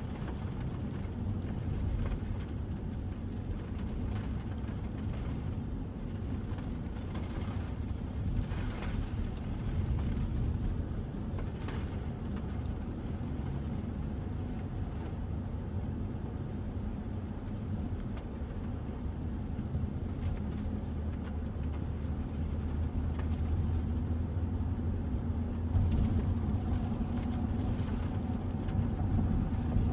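Ford F-150 pickup on the move: steady low road and engine drone, with a few brief ticks.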